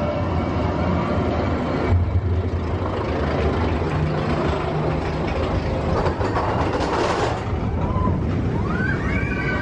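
Expedition Everest roller coaster train rolling along its track, heard from the front seat: a steady rumble of wheels on the rails. About a second before the end a high wheel squeal rises and holds as the train takes a curve.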